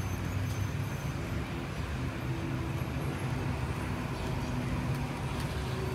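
Steady low rumble with a faint hum, as from model trains running on a large model railway layout.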